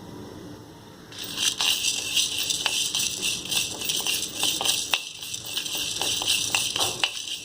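Whole dried spices and toor dal rattling and scraping against a clay pot as they are stirred while dry-roasting, a dense run of small clicks starting about a second in.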